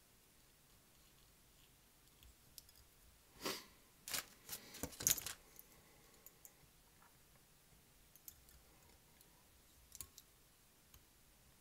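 Small clicks and a short rattle of fly-tying tools being handled at the vise, a quick cluster about three to five seconds in, then a few faint ticks.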